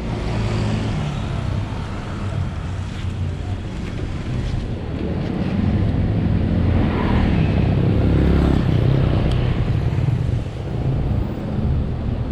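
Harley-Davidson Sportster Forty-Eight's 1200 cc V-twin engine running under way, getting louder as the throttle opens about halfway through, then easing off briefly near the end, with wind buffeting the microphone.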